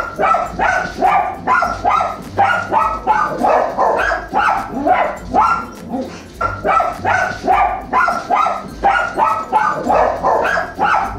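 Small dogs barking rapidly and almost without pause, about three sharp barks a second. This is alarm barking at the mail carrier outside the window.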